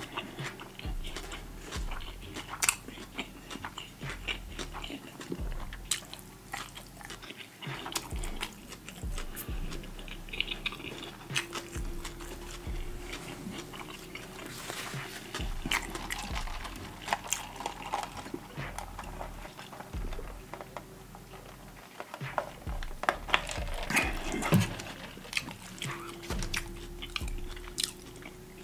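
Chewing and lip-smacking of a man eating a corned beef sandwich and french fries, with many small irregular clicks.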